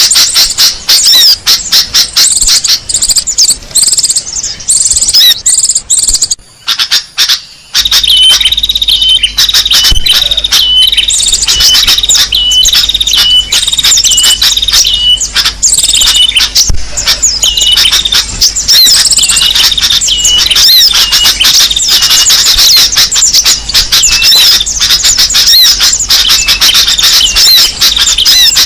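Loud, dense chorus of small songbirds chirping and twittering, a bird-lure call recording for attracting small birds. The sound drops out briefly about seven seconds in, and after that a short high note repeats a few times a second under the chirping.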